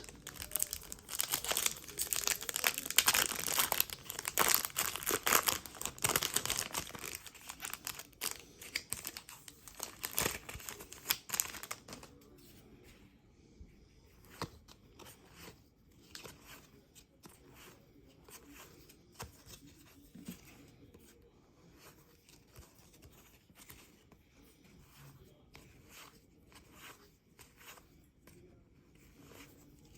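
A trading-card pack wrapper being torn open and crinkled for about the first twelve seconds, then quieter, scattered clicks and rustles of cards being handled.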